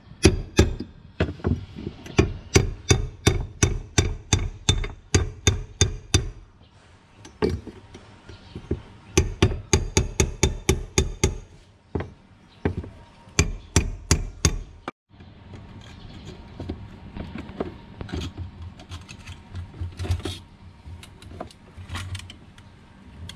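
Runs of sharp, rapid taps, about three or four a second: a tool being struck to drive the locking ring of a BMW E36's in-tank fuel pump/sender cover round and loosen it, done this way because the special ring tool is missing. Three such runs, then lighter clicks and handling as the ring comes free and the unit is lifted.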